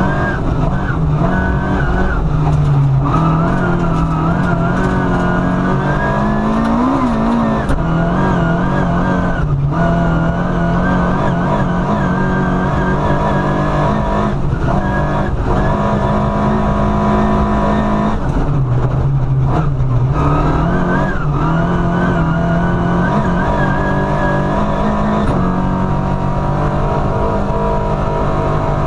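Rally car engine running hard, heard from inside the cabin. The pitch climbs and falls repeatedly and drops sharply several times at gear changes, over a steady rush of tyre and road noise.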